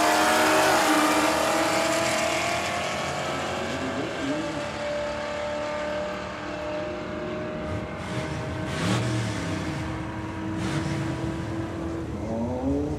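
A 2006 Pontiac GTO's LS2 V8, breathing through long-tube headers and a full 3-inch exhaust, runs at full throttle on a quarter-mile drag pass, with a second race car running alongside. The engine note climbs, drops at a gear change about half a second in, then holds steady and fades as the cars pull away down the track.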